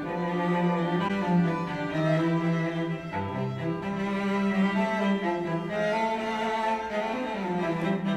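A classical piece of bowed string music, low strings to the fore, played back through studio monitor speakers and picked up by a recorder in the room. Partway through, with a brief dip, the playback switches from a pair of Kali LP-6 monitors to a pair of Mackie MR524 monitors.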